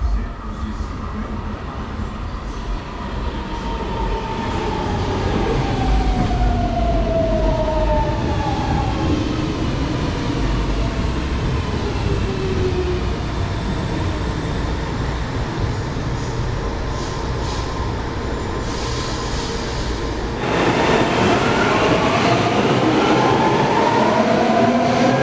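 Brasília metro electric train running through a station, its motor whine falling in pitch as it slows over a low rumble. About twenty seconds in the sound changes abruptly to a train pulling away, its whine rising in pitch.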